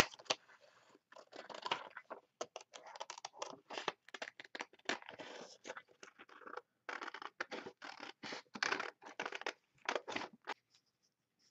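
Scissors cutting a glossy magazine page: a run of short, crisp snips and paper rustles at an uneven pace, stopping shortly before the end.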